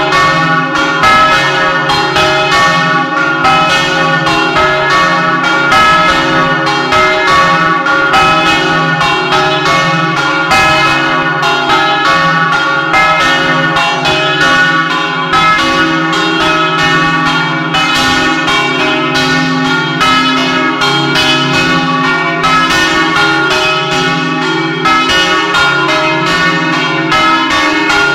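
Several large bronze church bells swinging and ringing together in an electrically driven 'doppio' peal, heard close up inside the bell chamber. Clapper strikes come thick and fast and overlap into one loud, steady wash of ringing tones.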